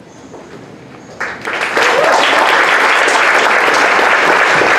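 Audience applauding, breaking out about a second in after a brief lull and holding steady.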